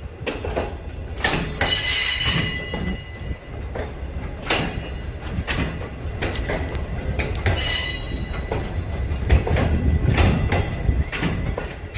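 Train of new Chinese-built Pakistan Railways passenger coaches rolling along the track: a steady low rumble with wheel clatter and knocks. The wheels give brief high-pitched squeals about two seconds in and again at around seven and a half seconds.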